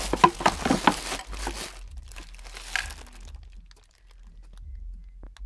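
Plastic bags crinkling and rustling as bagged electronic parts are handled, loudest in the first two seconds and dying away by about four seconds in, with faint rustling after.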